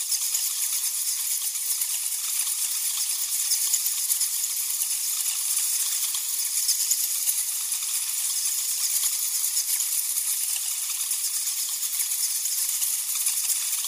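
Many bats chittering and squeaking at once: a dense, steady, high-pitched crackle of countless small calls.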